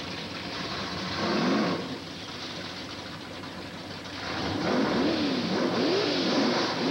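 A drag car's engine, a mid-1950s Chevrolet two-door sedan, idling and being blipped on the throttle. One rev rises and falls about a second and a half in, then a run of quick revs comes about once a second from around four and a half seconds.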